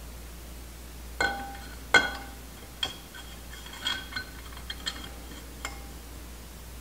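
Metal parts clinking with a bright ring: two sharper clinks about one and two seconds in, then several lighter ones.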